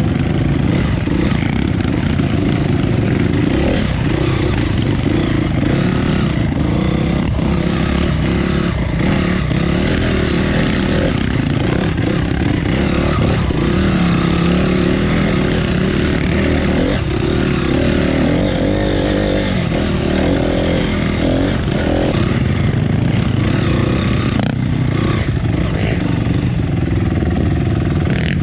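Off-road dirt bike engine running steadily while being ridden along a trail, with occasional short knocks and rattles.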